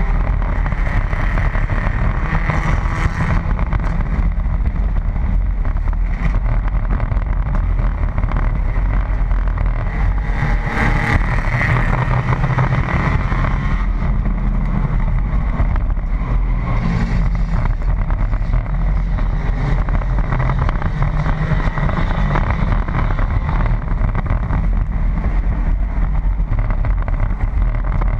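Enduro stock car's engine running under race load, heard from inside the car over steady road and wind noise, with other race cars running close by.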